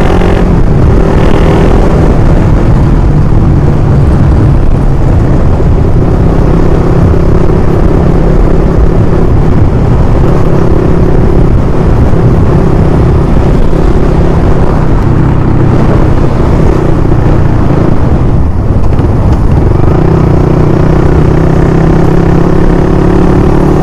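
Motorcycle riding at a steady cruise: a constant engine hum under heavy, rushing wind noise on the microphone, easing off briefly about three quarters of the way through.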